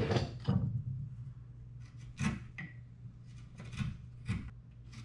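Chisel paring the end of a half-inch oak dowel peg: a few short, separate scraping strokes of steel on wood.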